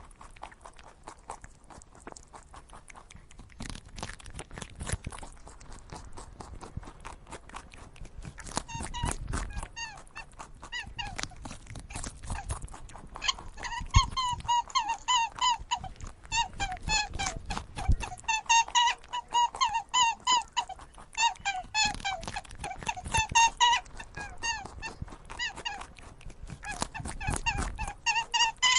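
A dog's rapid, high, squeaky whining yelps, repeated in quick runs through the second half, with scattered clicks and knocks before them.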